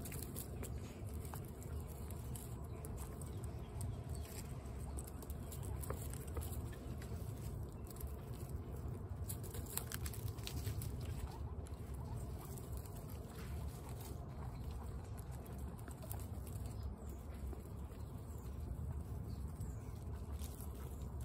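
Several guinea pigs crunching dry pellets, a stream of small crisp chewing clicks over a low background rumble.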